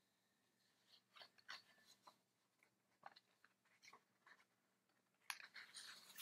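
Near silence: room tone with a scatter of faint small clicks and rustles, then a longer, louder rustle near the end.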